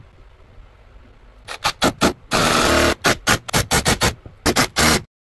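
Cordless drill run in short trigger bursts while drilling mounting holes into the wall: about a dozen brief bursts with one longer run of about half a second, starting about a second and a half in and cutting off abruptly near the end.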